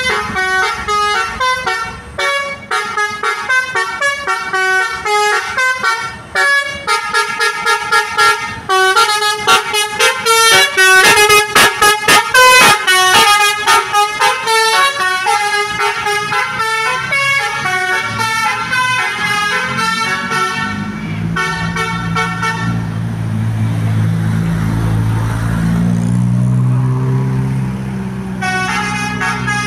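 Basuri 'telolet' multi-tone bus horn playing a quick stepping melody of several pitched notes, breaking into rapid stuttering repeats midway. About two-thirds of the way in the horn stops and a low engine sound rises and falls, the bus pulling away, before the horn notes return near the end.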